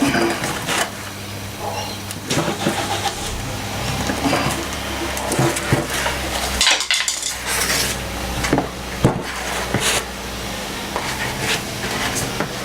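A metal coin scraping and clicking against a plastic GoPro bodyboard plug mount as it is turned to screw the mount into the board: irregular small clicks and scrapes over a steady low hum.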